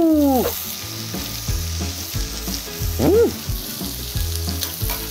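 Pork shoulder rack sizzling on a hot electric grill plate, a steady frying hiss. A drawn-out yell tails off in the first half-second, and a short rising-and-falling vocal sound comes about three seconds in.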